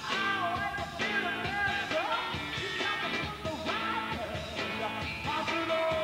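Live blues-punk rock band, electric guitars and drums, playing loud, with a man singing into the microphone over it.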